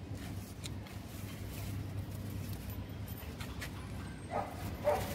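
A dog barks three short times near the end, over a steady low hum, with a few faint clicks.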